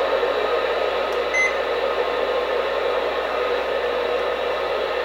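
Weather radio speaker giving a steady hiss of static, with one short electronic key beep about a second and a half in.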